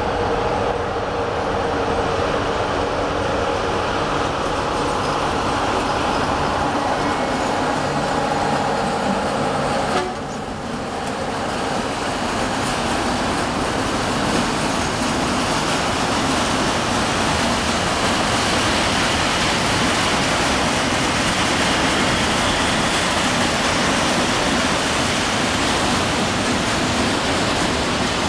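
Freight train passing at close range, hauled by an electric locomotive with a diesel locomotive behind it. For about the first ten seconds the locomotives run with a steady multi-tone hum over a rumble. After a sharp click, the tank wagons roll by with a steady, even rush of wheel noise.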